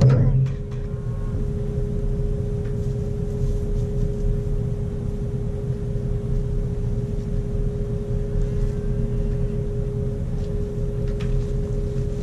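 Truck engine idling steadily: a low rumble with a constant hum. There is a short knock at the very start.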